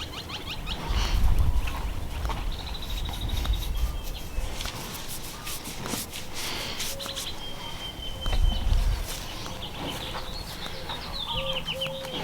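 Small birds chirping, with a short rapid trill a few seconds in and quick falling chirps near the end, over low gusts of wind on the microphone and footsteps crunching through dry weeds.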